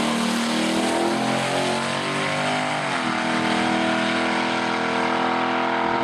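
A car engine revving. Its pitch wavers for the first few seconds, dips about three seconds in, then climbs and holds steady at high revs.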